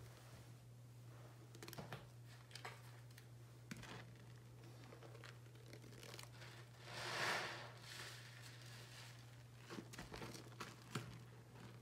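Soap-soaked sponge squeezed and pressed in foamy water: faint wet squishes and crackling foam, with one louder wet swish about seven seconds in. A steady low hum runs underneath.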